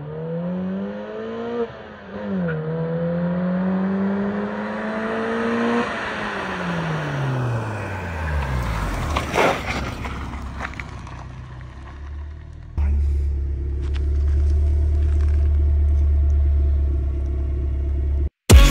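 Honda Civic EF hatchback with an aftermarket Yonaka exhaust accelerating toward the camera, the pitch dropping once for an upshift and then climbing again. It passes by with the pitch falling away. After a sudden change, the exhaust idles with a steady low drone heard right at the tailpipe.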